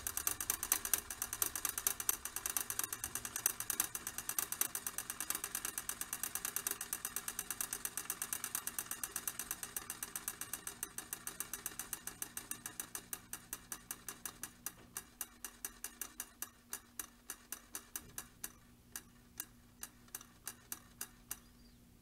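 Spring-wound Emdeko 115-A-FT mechanical fire alarm bell running down: a fast run of strikes that gradually slows and fades, spacing out to a couple a second before stopping near the end as the wound spring runs out.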